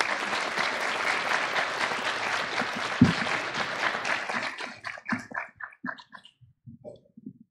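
Audience applauding, thinning to a few last separate claps about five seconds in. A single dull thump sounds about three seconds in.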